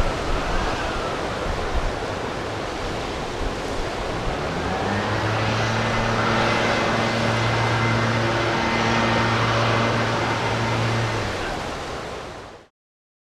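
Storm wind and surf noise during Hurricane Igor; a steady low hum joins about five seconds in and stops shortly before everything fades out near the end.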